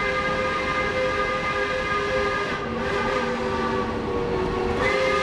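Steam locomotive whistle blowing one long, held blast of several pitches at once, easing off briefly in the middle and swelling again near the end, over the rolling noise of the passing train.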